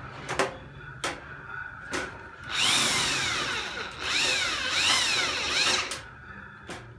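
Corded electric drill, the Panda 820 W, boring into thin metal sheet in two bursts of about a second and a half, its pitch rising and falling as the bit bites. A few sharp knocks come before the drilling.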